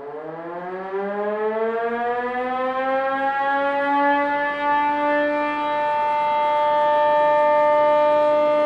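Civil defense air-raid siren winding up: its pitch rises steadily over the first five seconds or so, then holds one steady tone.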